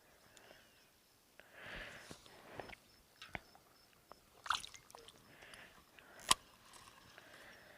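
Faint handling noises of fishing tackle and groundbait: soft squishing and rustling with a few sharp clicks, the loudest click about six seconds in.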